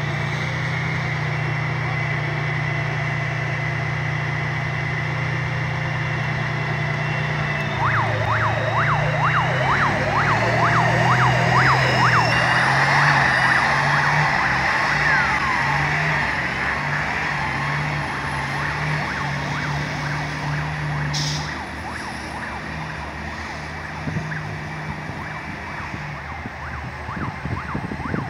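A heavy vehicle's engine running with a steady low drone. From about eight seconds in, a run of quick high squeals and a rising whine join it for several seconds. The whole sound drops somewhat quieter after about twenty-one seconds.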